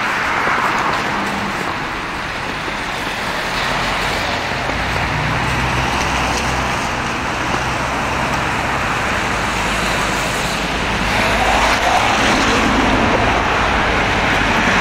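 Steady road traffic noise, with a low engine drone coming in about four seconds in and growing a little louder near the end.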